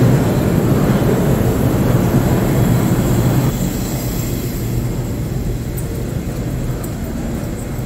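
Subway train running through a station, a dense low noise that eases off about three and a half seconds in.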